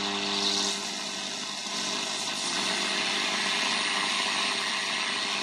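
Tesla Kankan radio hissing with static while it is tuned between AM stations, with a thin steady high whistle over the noise. A low buzzing tone fades out within the first second.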